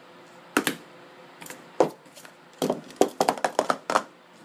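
Speed Stacks Pro Series 2 plastic sport-stacking cups clacking as they are stacked into pyramids and downstacked: a few separate clicks, then a fast run of clacks near the end. The new cups make a sound called weird when they are downstacked.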